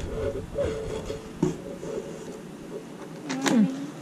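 Paperback workbooks being handled and slid about, with paper rustling and a click, under faint voices. A short vocal sound comes near the end.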